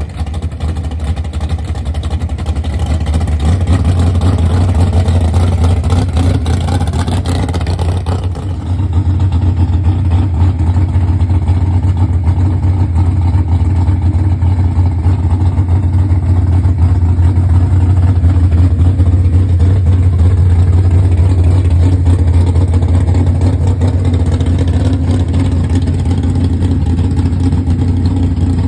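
Drag-race Chevrolet Cavalier's engine running loud and steady at idle, with a deep low rumble.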